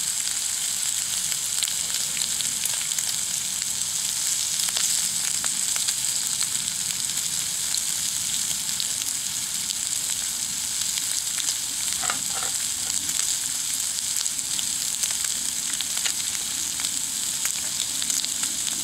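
Bacon frying in a pan: a steady high sizzle with many small spits and pops.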